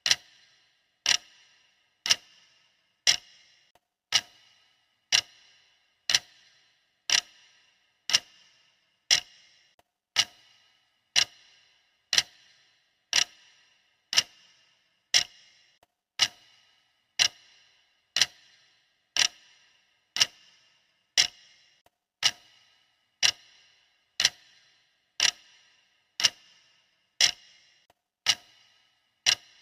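Clock ticking steadily, one crisp tick a second, each tick ringing briefly.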